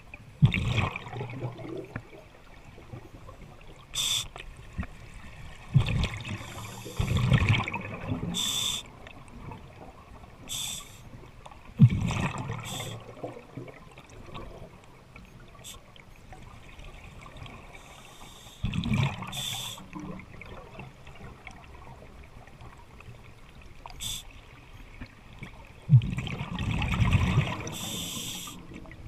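Scuba diver breathing underwater through a regulator: exhaled bubbles gurgle out in five bursts of a second or two, about every six seconds, with short sharp clicks between them.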